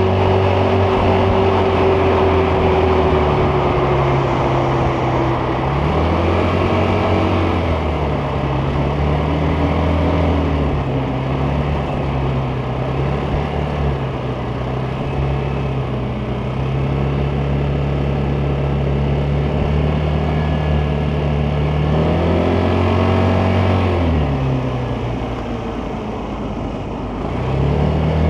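Vespa GTS 300's single-cylinder four-stroke engine running under way, its pitch falling as the throttle eases a few seconds in, climbing again shortly after, wavering up and down through the middle, then dropping once more and picking up near the end.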